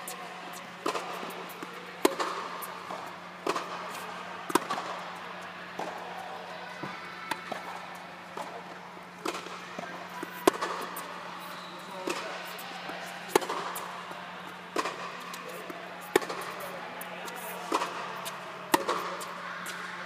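Tennis balls struck back and forth in a baseline rally on an indoor court: sharp racket hits with ball bounces between them, about one every second to second and a half, each with a short echo, over a steady low hum.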